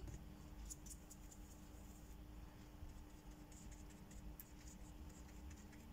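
Faint soft scratching of a paintbrush working gouache paint in short strokes and dabs, over a low steady hum.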